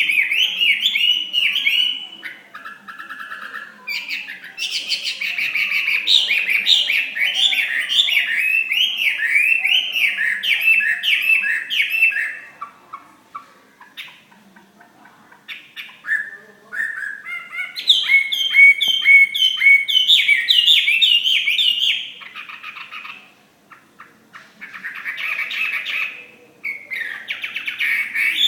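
Chinese hwamei (melodious laughing thrush) singing: long runs of rapid, repeated sliding notes, broken by a few short pauses.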